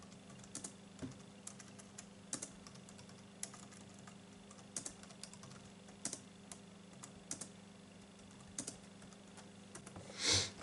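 Computer keyboard typing: irregular key clicks in small clusters as a search phrase is typed, with a short, louder hiss near the end.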